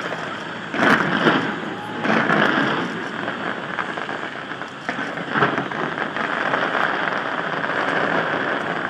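Fireworks going off in a dense, continuous crackle, with louder bangs about a second in, around two seconds in and again around five and a half seconds in.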